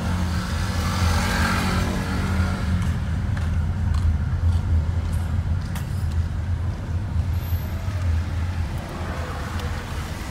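Car cabin noise while driving slowly along a wet street: a steady low rumble of engine and road, with a louder swell of noise from about one to three seconds in.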